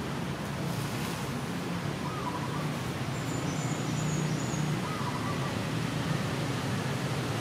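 Steady outdoor background noise with a low hum, like distant traffic, and a few faint short high chirps.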